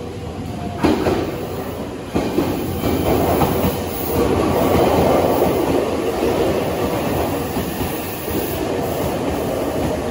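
Electric commuter trains moving past at close range along a station platform. There are two sharp clacks of the wheels in the first couple of seconds, then a steady, heavy rumble of wheels on rail.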